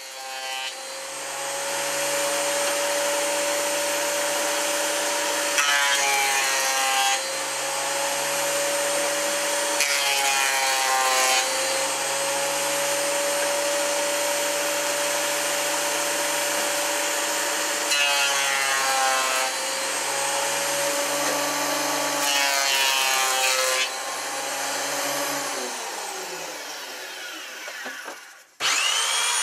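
Makita benchtop thickness planer running steadily, with four louder stretches of a second or two as wooden blanks feed through the cutterhead. Near the end the machine's sound falls away.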